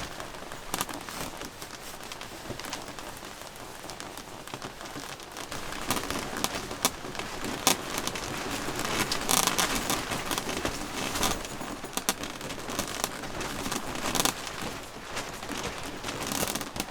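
Fabric of a car-docking tent flapping and crackling in strong gusting wind: a steady rush with many sharp snaps, getting louder about six seconds in.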